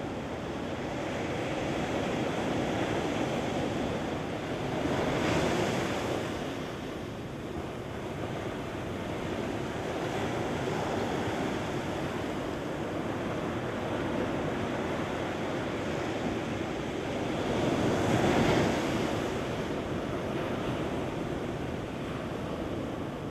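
Ocean surf washing up a sandy beach: a continuous rushing wash of water, with two louder surges as waves break, about five seconds in and again about eighteen seconds in.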